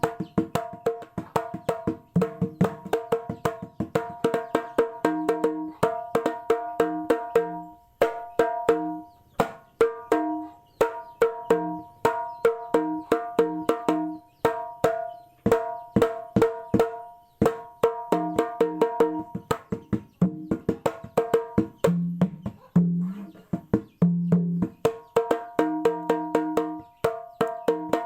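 Handmade kendang played in a fast, continuous rhythmic pattern: dense sharp strokes with a ringing, pitched tone, broken by deeper notes that come back every second or so. Its tone is described as strange.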